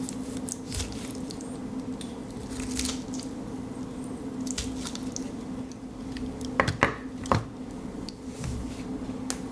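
Swiss Army knife blade cutting and peeling a prickly pear cactus fruit: wet squishing and scraping of the blade through the juicy skin and flesh, with three sharp clicks about two thirds of the way through. A steady low hum runs underneath.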